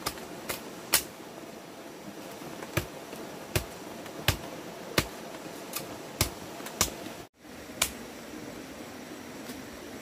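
A series of sharp knocks at irregular intervals, roughly one a second, over a steady background hiss. The sound cuts out briefly about seven seconds in.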